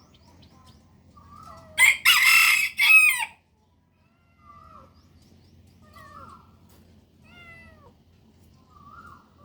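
A rooster crows loudly once, about two seconds in, while kittens keep up short, high mews every second or two.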